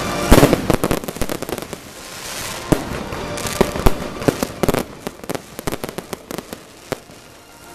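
Aerial fireworks going off: a loud bang about a third of a second in, then many sharp pops and crackles from bursting shells, with stretches of hiss.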